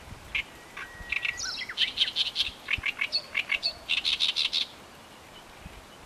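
Small wild songbird singing a quick run of sharp chirps and short trills, with a brief whistled note early on; the song stops a little over three-quarters of the way through.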